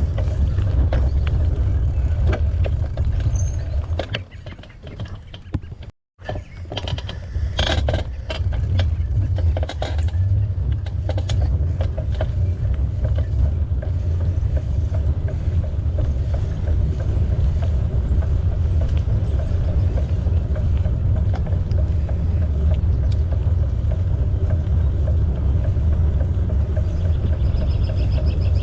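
Wind rumble on the microphone and tyre noise from a bicycle rolling along a trail. It drops away for a moment about six seconds in, then a run of clicks and knocks follows. A fast, even ticking comes in near the end.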